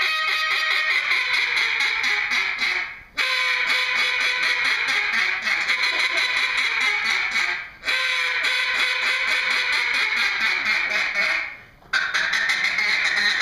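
Hand-held duck call blown in a contest routine: long, fast runs of quacking notes, broken by three brief pauses for breath about three, eight and twelve seconds in.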